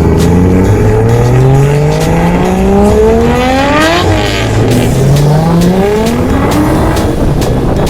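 Car engine accelerating hard: its pitch climbs steadily for about three and a half seconds, drops sharply at a gear change about four seconds in, then climbs again through the next gear.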